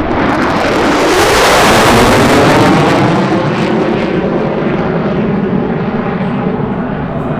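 Single F-35A Lightning II fighter's jet engine, a Pratt & Whitney F135 turbofan, sounding loud as the jet maneuvers and climbs away. The noise swells to its loudest about one to two seconds in, with a sweeping, phasing quality, then eases off as the jet draws away.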